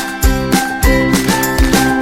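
Upbeat background music with a steady beat and bright, tinkling melody notes.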